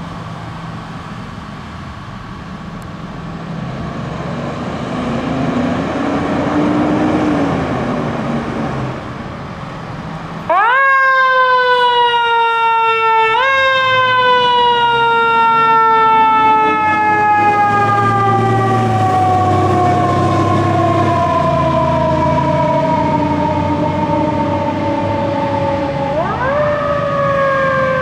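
A heavy fire engine's motor runs, rising and falling in pitch. Then its Federal Signal EQ2B mechanical siren is wound up sharply about ten seconds in and starts to coast down. It is wound up again a few seconds later and wails slowly down for a long stretch, then is wound up once more near the end.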